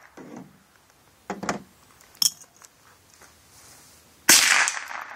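A single rifle shot about four seconds in: a sharp crack with a short echoing tail. A few light clicks and knocks come before it, about one and two seconds in.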